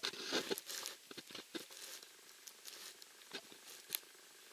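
Close rustling and crackling with sharp clicks, densest in the first second or two and thinning out after, with another sharp click near the end.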